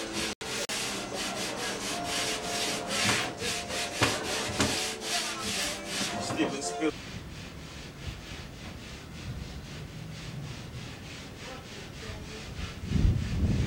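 Rhythmic rasping strokes, about three a second, on a sheet of plasterboard, typical of sawing or rasping the board to fit; they stop abruptly about seven seconds in. After a quieter stretch, a low rumble starts near the end.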